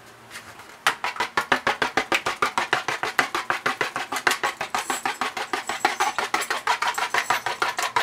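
A fork whisking a raw egg in a paper bowl: rapid, even strokes about eight a second, each a sharp click of the fork against the bowl, starting about a second in.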